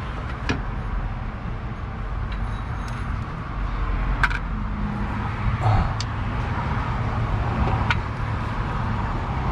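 A few sharp metallic clicks and knocks as a serpentine belt tensioner is handled and fitted onto an engine's accessory drive, over a steady low background rumble.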